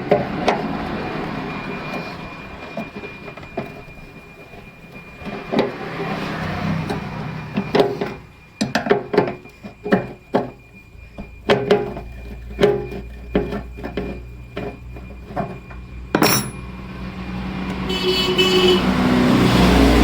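Sharp clicks and knocks of hand tools on metal as the fuel tap (petcock) is unbolted from a motorcycle fuel tank. Over the second half a low vehicle rumble grows louder in the background.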